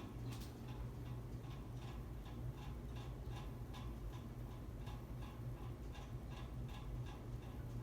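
Hampton Bay Oakley ceiling fan running on medium with a steady low motor hum and a light, regular ticking, nearly three ticks a second, keeping time with the turning fan; a single sharper click about half a second in.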